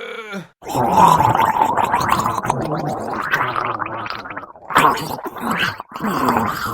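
Goblin creature vocal effect: a long gargling growl of about four seconds, then three short gargled grunts.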